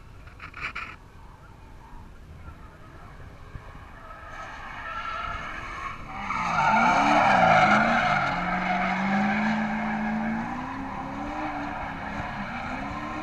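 E36 BMW drift car with a swapped Ford 5.0 HO Mustang V8, drifting: the engine revs rise and fall while the tyres squeal. It is faint at first, swells about four seconds in, and is loudest about halfway through.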